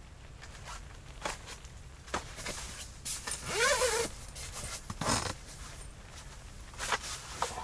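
A zipper on the fabric ice-fishing tent pulled in one long sweep about three and a half seconds in, with rustling of tent fabric and a few short knocks and shuffles on the tent floor around it.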